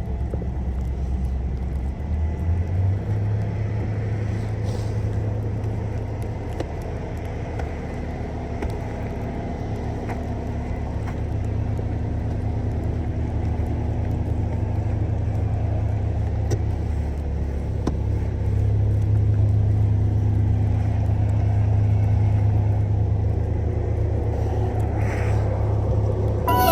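A car driving, with its steady low engine and road hum. The hum steps up in pitch about two seconds in and grows a little louder in the second half.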